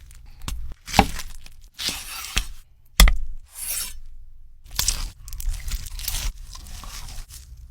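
Irregular scraping and crunching noises, with sharp knocks about one second and three seconds in.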